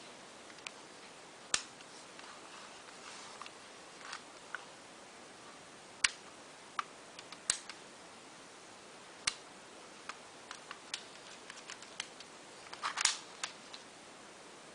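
Sharp, irregular mechanical clicks from a full-metal P911 airsoft pistol being handled, a few louder ones spread out and a quick run of clicks near the end.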